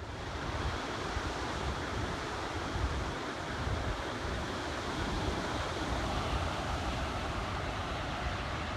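Ocean surf breaking on a beach, a steady wash of noise, with wind buffeting the phone's microphone in a low, gusty rumble.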